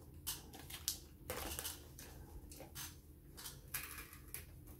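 Plastic food tubs and packaging being handled and set down on a tabletop: a scatter of light clicks and knocks.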